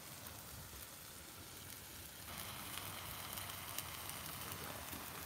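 Beef burger patties sizzling on a Blackstone flat-top griddle: a steady crackling hiss that grows louder a little over two seconds in.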